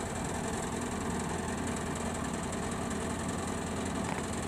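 Kubota DC105X combine harvester's diesel engine running steadily, a constant engine drone.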